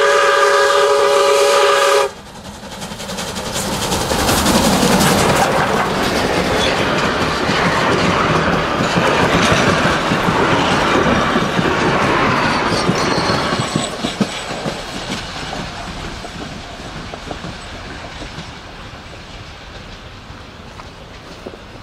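Steam locomotive's chime whistle blowing, several notes at once, cutting off about two seconds in. The train then passes close by, its carriage wheels clattering over the rail joints, loudest in the middle and fading as it runs away.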